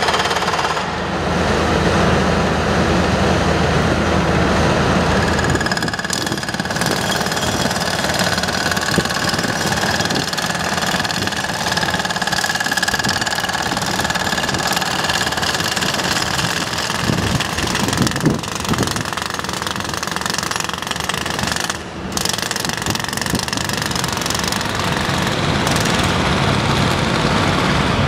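Heavy-construction noise: a jackhammer-like pounding over diesel engines of construction machinery and trucks running.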